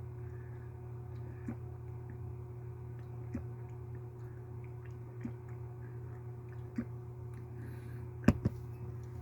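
A steady low hum, with faint soft clicks about every two seconds and two sharp clicks in quick succession near the end.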